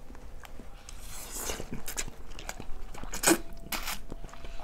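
Close-miked mouth sounds of people eating shrimp scampi pasta: wet chewing and clicks, with a few short, louder slurps of noodles about a second and a half, two, and three and a half seconds in.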